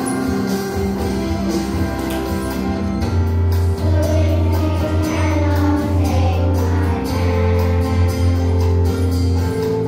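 Children's choir singing a song together with accompanying music that has a steady bass and beat.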